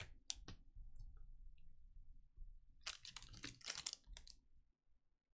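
Trading cards handled by hand: a few light clicks at the start, then a quick run of card rustles and taps lasting about a second, about three seconds in, as the cards are gathered up off the mat.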